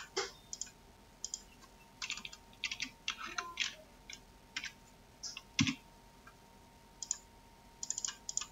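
Typing on a computer keyboard: short irregular runs of key clicks, with one heavier key strike a little past halfway.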